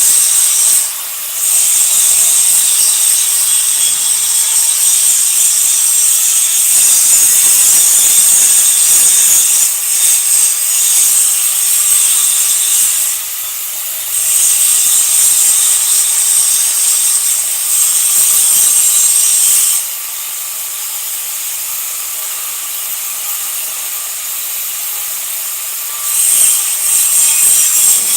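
Electric arc welding: the arc hisses and crackles steadily in long runs, breaking off briefly about a second in and again about halfway, then falling quieter for several seconds before it strikes up again near the end.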